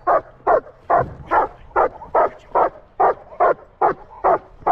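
Dog barking in a steady, regular rhythm: about a dozen short barks at roughly two and a half a second.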